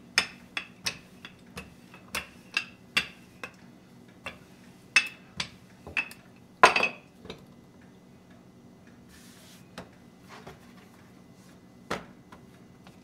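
Wooden rolling pin rolling out pie-crust dough on a wooden pastry board: sharp knocks and clacks, two or three a second for about seven seconds, the loudest near seven seconds in, then only a few scattered ones.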